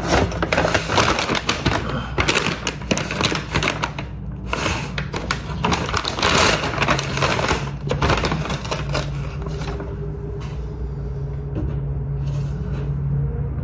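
Takeout food packaging being handled and opened: a quick run of rustles, crinkles and clicks from paper bag and containers, easing off after about nine seconds into a steady low hum.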